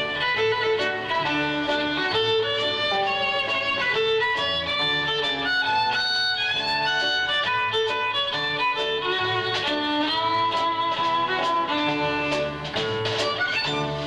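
Violin playing a fast jazz-style melody of many short, quickly changing notes, with a double bass accompanying underneath.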